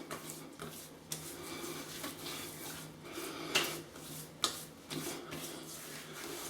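Hands rubbing post-shave balm into the skin: soft rubbing and handling with a few light clicks.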